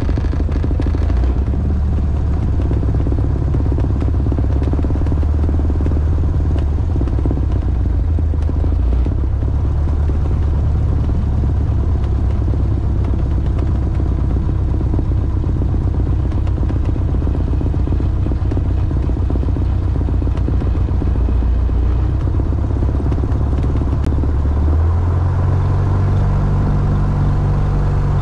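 Light aircraft's piston engine running at low power, heard inside the cabin as a steady low drone while the plane rolls along the ground after landing. About 25 seconds in, the low drone grows fuller.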